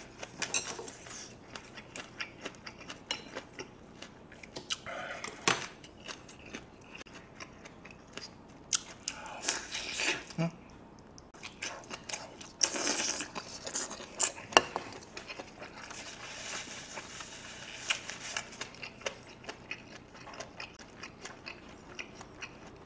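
Close-miked mouth sounds of a person chewing a mouthful of beef: many small wet clicks and smacks, with a few louder bursts of noise along the way.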